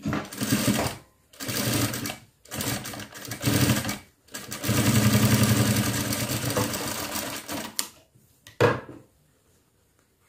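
Industrial lockstitch sewing machine stitching in four short runs, stopping and starting as the fabric is turned; the last run is the longest, about three and a half seconds. A single sharp click follows shortly after the machine stops.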